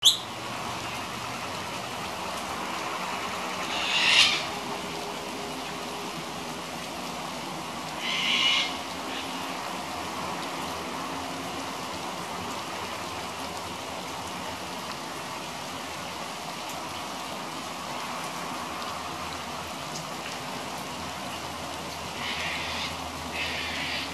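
Steady rain falling, with a sulphur-crested cockatoo giving harsh screeches: a loud one about four seconds in, another about eight seconds in, and two shorter ones near the end. A sharp click right at the start.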